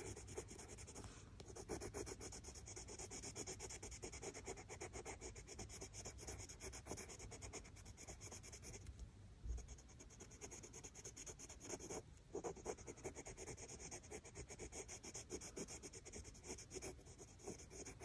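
Faint Prismacolor wax-based coloured pencil rubbing on cartridge paper in quick, short shading strokes, with a couple of brief pauses.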